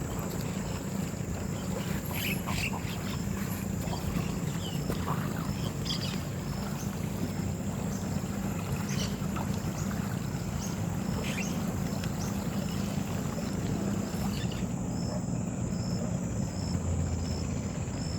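Steady low engine drone, with scattered short chirps and a constant high-pitched whine over it.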